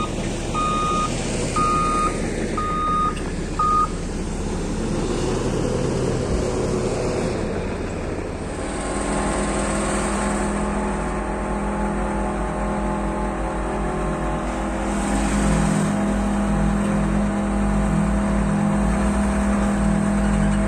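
A reversing alarm beeps about five times at an even pace in the first few seconds. Then, from about eight seconds in, heavy diesel earthmoving machinery runs with a steady drone that grows louder near the end.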